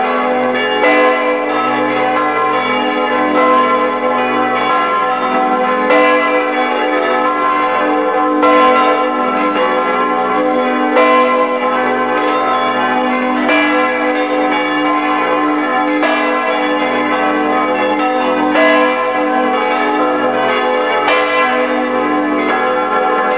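The five bronze bells of Saint-Pierre Cathedral's south tower swinging in full peal, heard from inside the belfry: overlapping strokes keep up a dense, continuous wash of ringing tones.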